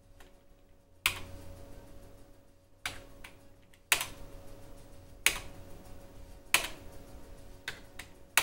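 Single key presses on an old desktop PC's keyboard, about seven separate clicks spaced roughly a second apart, entering choices in the FDISK menu to delete a partition.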